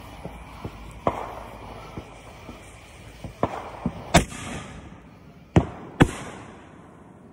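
Aerial fireworks bursting: a series of sharp bangs with smaller pops between. The loudest come about four seconds in and as two close together about a second and a half later.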